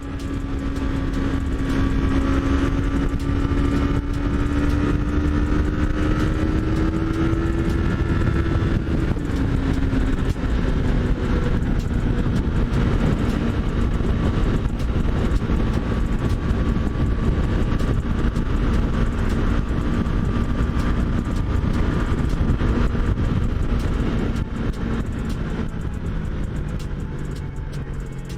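A Yamaha MT-03's parallel-twin engine running under way, with a steady rush of wind. The engine note climbs slowly and drops about nine seconds in, as after an upshift, then holds steady. Near the end it falls lower and fades.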